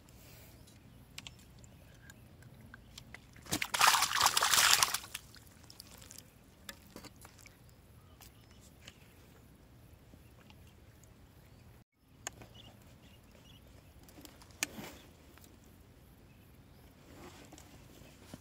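Water sloshing and splashing at the edge of a pond in one loud burst of about a second and a half, a few seconds in, with a few small clicks and light splashes around it.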